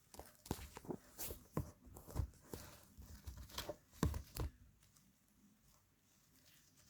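A string of light rustles, crackles and clicks for about four seconds, then near quiet: a hamster scrabbling and rummaging through bedding and scattered food.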